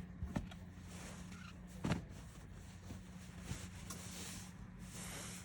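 Cotton T-shirts being handled and unfolded, with soft fabric rustling and a couple of short knocks, the loudest about two seconds in, over a steady low hum.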